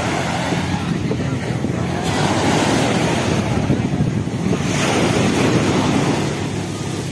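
Small sea waves breaking and washing up the sand, the surf rushing in two surges, with wind buffeting the microphone.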